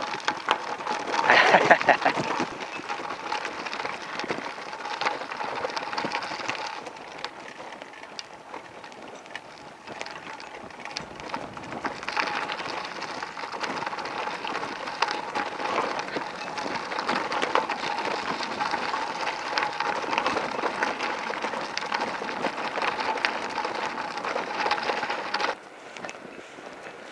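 Bicycle tyres rolling over a gravel path: a continuous crackle of small stones, with a faint steady tone under it. It stops suddenly near the end as the bike halts.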